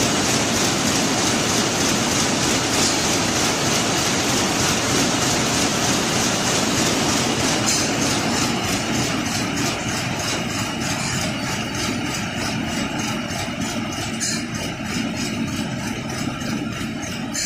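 Warp knitting machine running at speed: a loud, steady mechanical clatter with a fast, even rhythm, easing off slightly in the second half.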